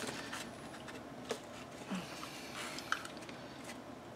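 Paper and small craft tools being handled on a tabletop: soft rustling with a few small, sharp clicks.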